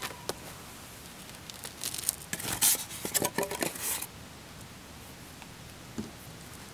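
Handling noises while a window is set into its rough opening: a few light knocks, then about two seconds of rustling and clattering, and one more knock near the end.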